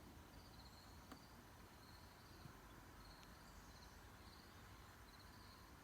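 Near silence with faint cricket chirping: short trilled chirps repeating a little more often than once a second.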